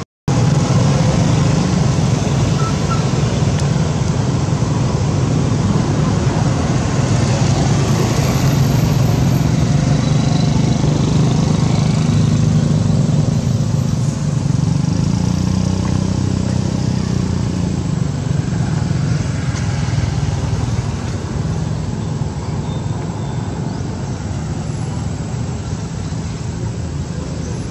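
Steady loud rumble of motor-vehicle noise, strongest in the low range, with a brief dropout right at the start.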